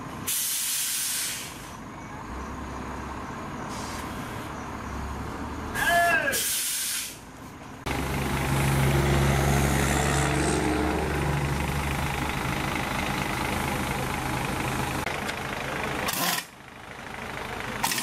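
Short bursts of compressed air hissing, then about eight seconds in a heavy truck passes on the highway, its engine a steady low drone for several seconds before it fades.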